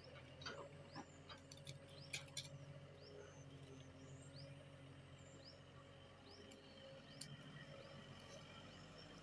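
Faint, repeated short bird chirps over a low steady hum from the JCB excavator's diesel engine, with a few sharp clicks.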